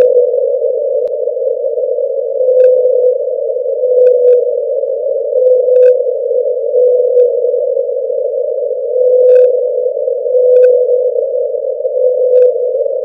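The 52-hertz whale's call, played back sped up ten times to about 520 Hz. It comes as a series of short, steady tones, mostly in pairs about a second apart, over a constant band of ocean noise, with faint clicks.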